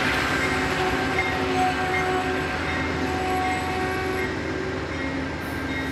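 Amtrak Vermonter passenger train rolling past at close range: a steady rumble of wheels on rail with faint steady tones through it, easing slightly as the cars go by.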